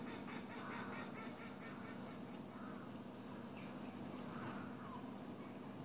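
Woodland birds calling through a television's speakers: short falling calls scattered through, with a burst of high chirps about four seconds in, over a steady low hum.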